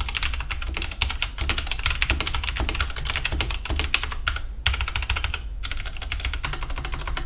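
Typing on a Tecware Phantom 87 tenkeyless mechanical keyboard with Outemu Brown tactile switches: a fast, dense run of key clacks, with short pauses about four and five and a half seconds in.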